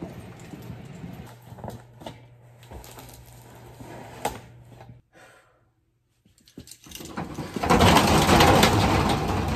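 Metal roll-up door of a storage unit rattling loudly as it is rolled, for about two seconds near the end. Before it, faint knocks and shuffles of cardboard boxes being handled over a steady low hum, cut off by about a second of silence.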